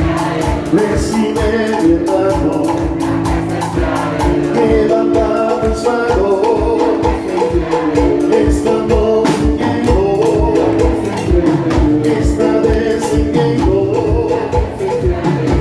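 Music with a steady, even beat under sustained chords, playing at a full, even level.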